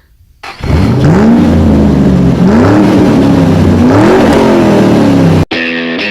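An engine revving about three times, its pitch rising and falling with each blip, then cutting off suddenly near the end.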